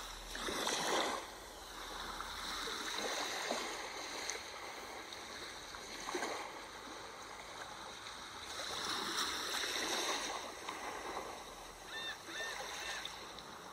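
Sea waves washing in, rising and falling in slow swells. A short run of faint high chirps comes near the end.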